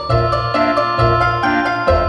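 Light, cheerful background music with mallet- and keyboard-like notes over a bouncing bass line.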